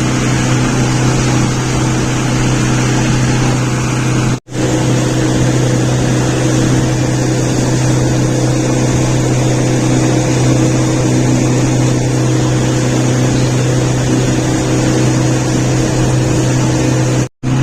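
Motorboat engine running at a steady pace, with rushing wind and water noise; the sound drops out completely for an instant twice.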